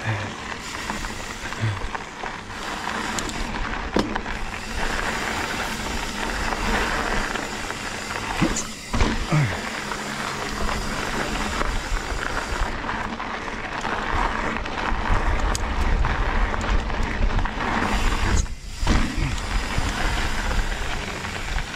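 Mountain bike in motion on a rocky trail: a steady rush of wind and tyre noise, with a few sharp knocks and rattles from the bike.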